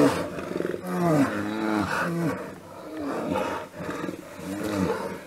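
Two brown bears fighting, giving a string of short deep roars and growls, each rising and falling in pitch, about one a second, with a quieter stretch a little past the middle.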